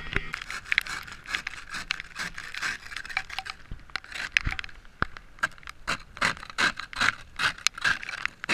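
A scraper working a glaze of freezing rain off a car in many short, rapid strokes, which come thicker in the second half.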